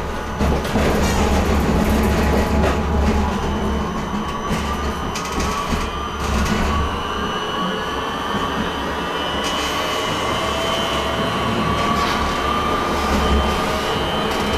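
Tram running, heard from inside the passenger saloon: a low rumble of the wheels on the rails with scattered clicks and knocks, and from about four seconds in the whine of the electric traction drive rising slowly in pitch as the tram picks up speed.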